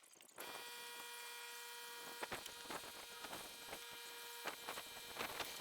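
Steady electrical hum with a high buzz that starts abruptly about half a second in, with a few light clicks over it.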